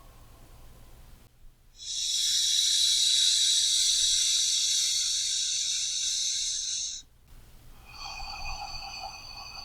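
A person's slow, deep paced breathing: one long, loud airy breath lasting about five seconds, then a softer breath beginning about eight seconds in.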